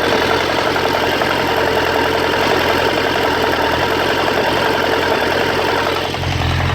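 1998 Suzuki Bandit 1200's inline-four engine idling warm with a steady, rapid mechanical knocking, heard close up at the cam chain tensioner. Near the end the low hum grows louder.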